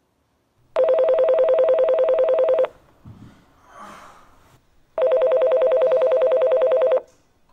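Mobile phone ringing with a rapid trilling electronic ringtone: two rings of about two seconds each, a couple of seconds apart. Soft knocks and rustling come between the rings.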